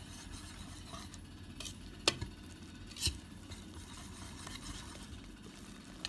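A wire balloon whisk stirring milk and oil into crumbly flour for doughnut dough in a mixing bowl, with scraping and a few sharp clicks of the whisk striking the bowl, the loudest about two seconds in and another about a second later.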